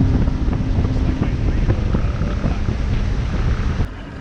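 Boat motor running with heavy wind buffeting the microphone, a dense low rumble under a faint steady hum. The sound drops away abruptly near the end.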